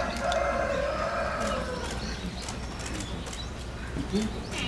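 Giant panda calling: one long, slightly falling call lasting about two seconds, followed by a short low sound near the end.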